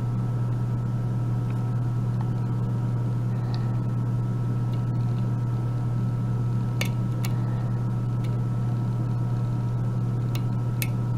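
A steady low hum with a faint higher whine runs throughout. Over it come a few small, sharp clicks of a lock pick working the pins of a euro cylinder lock, about halfway through and twice near the end.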